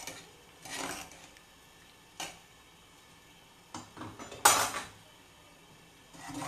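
Pots, pans and metal utensils clattering: a handful of separate knocks and scrapes with quiet between them. The loudest, sharpest clatter comes a little past the middle.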